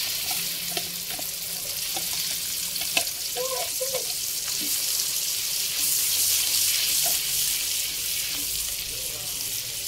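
Ground spice paste sizzling steadily in hot oil in a wok as it is spooned in from a jar and stirred, with a few light clicks of the metal spoon.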